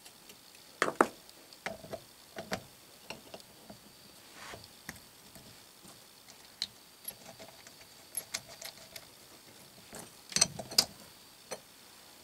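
Small steel parts of a dividing head clicking and clinking as they are handled and reassembled: a screwdriver on the sector-arm screw over the index plate, then the index crank and plunger fitted onto the spindle. The clicks are scattered and irregular, with the loudest cluster about ten seconds in.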